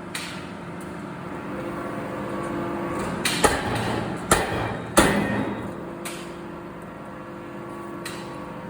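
Steady hum of forging-shop machinery with three sharp metal impacts in the middle, the last the loudest, and a few lighter knocks around them.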